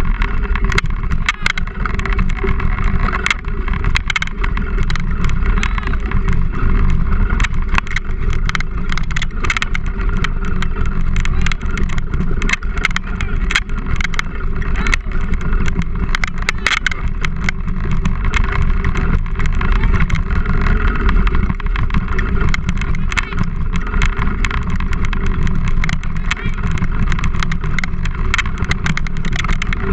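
Steady wind and rolling rumble on a handlebar-mounted action camera as a dog-pulled rig runs over a bumpy dirt trail, with frequent rattles and knocks from the frame and camera mount.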